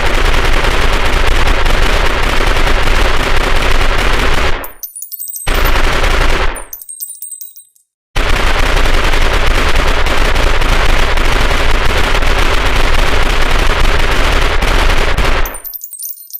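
Owen 9 mm submachine gun firing full-auto bursts: a long burst of about four and a half seconds, a short burst of about a second, then after a pause a long burst of about seven seconds. High metallic tinkling sounds in the pauses between bursts.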